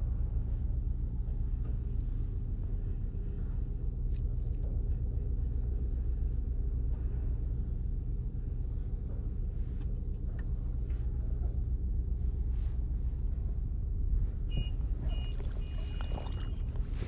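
Steady low rumble of a distant engine, with a hum of even tones underneath. Near the end a faint high tone sounds a few times.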